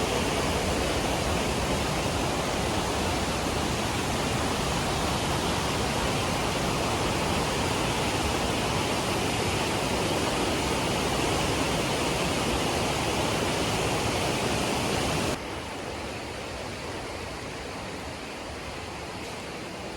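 Waterfall in a mountain gorge: a steady, dense rush of falling water. About fifteen seconds in it drops suddenly to a quieter level.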